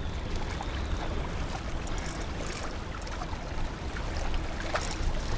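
Wind and water noise on an open boat: a steady low rumble with an even hiss, broken by scattered small clicks and light splashes.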